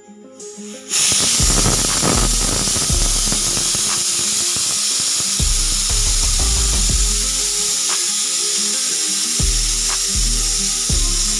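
Pressure cooker whistling: steam venting past the lifted weight valve as one loud, steady hiss that starts suddenly about a second in, with music playing underneath.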